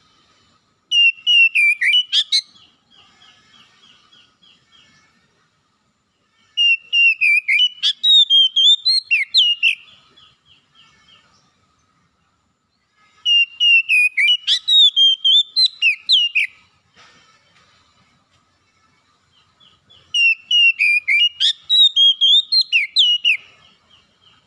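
Oriental magpie-robin singing: four loud phrases of rapid, varied whistled notes a few seconds apart, each trailing off into a quieter run of fast repeated chips.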